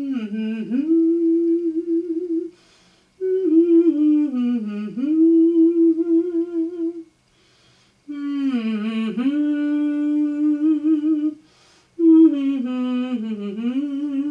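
A woman humming a song melody without accompaniment, in four phrases; each glides down in pitch and then holds a long note with vibrato.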